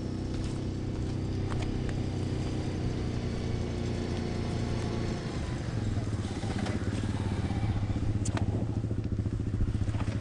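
A vehicle engine running steadily, with a few sharp clicks and rattles over it; its note shifts a little about halfway through.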